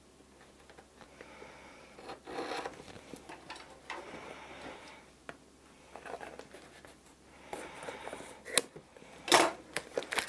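Scissors cutting and plastic shrink-wrap film being slit and pulled off a cardboard box, with rustling and scraping and a couple of sharp clicks near the end.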